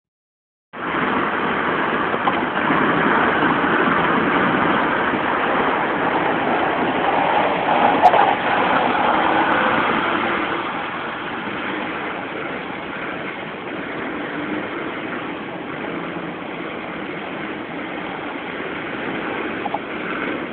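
Steady road noise inside a car moving along a freeway: a rush of tyres, wind and engine, louder for the first half and then settling lower. A single short click or knock sounds about eight seconds in.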